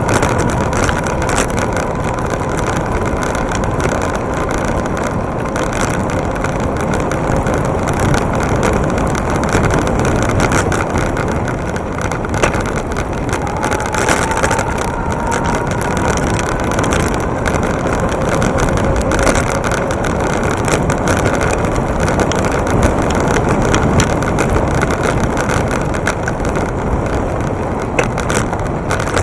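Steady wind and tyre-on-road noise from an electric bike riding fast over a rough paved road, with frequent small knocks and rattles from road vibration and a faint whine that drifts slowly in pitch.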